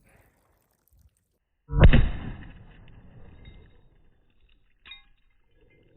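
A single rifle shot about two seconds in, loud and sudden, echoing away over the next two seconds. Near the end comes a short, faint metallic clink.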